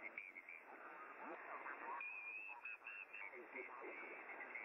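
Shortwave receiver audio from a web SDR tuned in the 20-metre amateur band: band hiss in a narrow single-sideband passband, with a garbled, off-tune voice and short, broken high tones coming and going.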